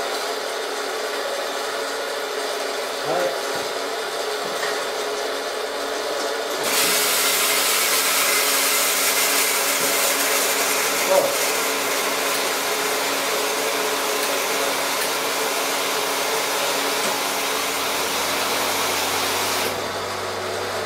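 Steady machinery hum at an engine dyno test stand, joined about seven seconds in by a loud, even rushing like a blower, which cuts off abruptly near the end. The engine itself is not yet firing.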